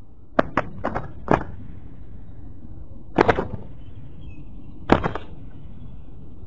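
Spotted doves fighting on the ground, their wings slapping. A quick run of four sharp wing claps comes about half a second in, another flurry a little after three seconds, and a last one near five seconds.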